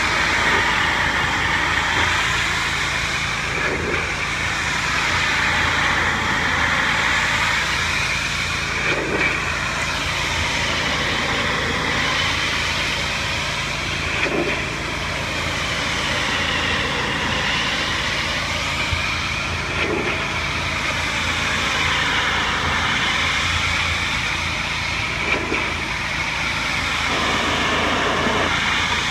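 Pressure washer running steadily, its high-pressure water spray hissing against house siding over the machine's steady hum. The tone of the hiss slowly rises and falls as the spray is swept back and forth.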